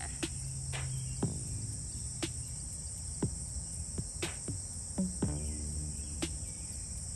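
Steady high-pitched cricket chirring, with a soft tick about once a second and faint low sustained tones underneath.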